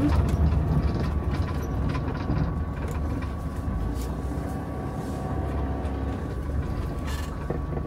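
Camper van's engine running at low speed while it is manoeuvred into a parking space, heard as a steady low rumble inside the cab, with a faint steady whine above it.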